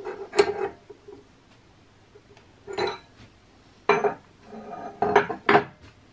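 Steel open-end spanners clinking against the spindle's collet nut and against each other, then laid down on the bench: about half a dozen separate metallic clanks with a short ring.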